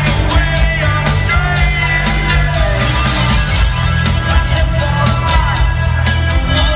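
Rock band playing live at full volume: electric guitars, bass and drums, with a sung vocal line over them.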